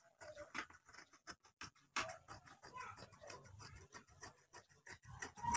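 Faint snipping of tailor's scissors cutting through cloth: a quick, irregular run of small clicks.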